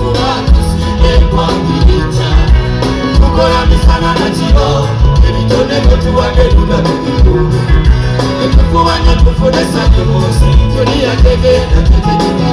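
Loud live band music with a steady bass beat and some singing, played over a concert sound system.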